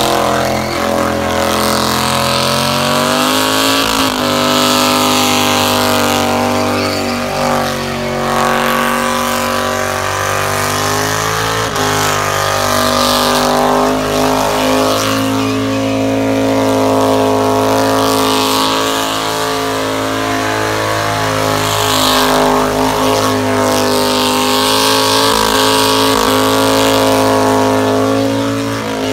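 Car engine held at high revs through a long burnout, its pitch rising and dipping a few times as the throttle is worked, with a hiss from the spinning, smoking tyres over it.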